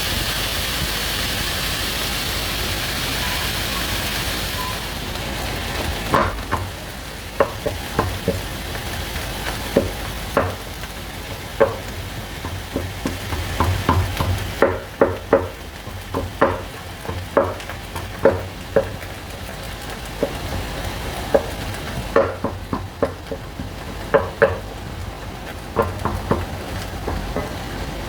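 Food sizzling in a frying pan while being stirred. A steady hiss at first; from about six seconds in, a utensil knocks and scrapes against the pan every second or so.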